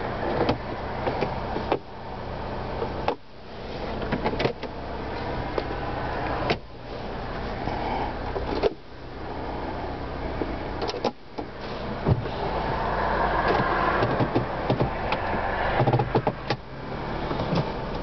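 A 2004 Toyota Highlander idling, heard from inside the cabin as a low steady hum under a rushing air noise that swells about two-thirds of the way in. Repeated clicks and knocks come from hands handling the seat, seatbelt buckle and gear shifter.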